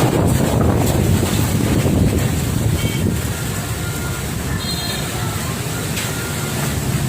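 Strong wind gusting over the microphone: a loud, dense rush of wind noise heaviest at the low end, easing a little after about three seconds.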